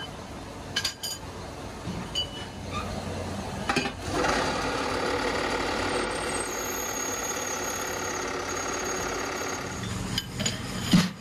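A motor-driven workshop machine running with a steady mechanical whine. It grows louder and denser about four seconds in, and a few knocks and clicks come near the end.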